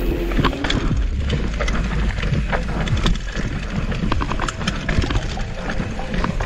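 Mountain bike riding down a rough dirt trail: irregular knocks and clatter from the bike jolting over the ground, over a steady low rumble of wind on the microphone.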